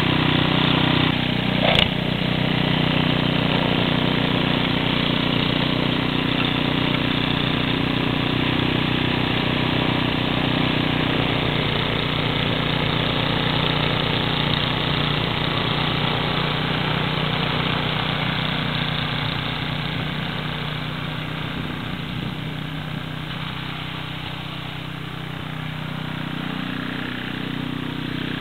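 Two-stage snowblower's engine running steadily under load as it clears and throws snow, with one sharp knock about two seconds in; it grows fainter in the second half as the machine moves away.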